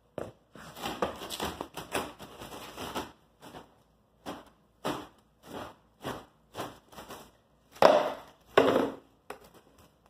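Clear plastic stretch wrap being pulled off its roll in a run of short crackling, crinkling bursts, with the two loudest pulls near the end.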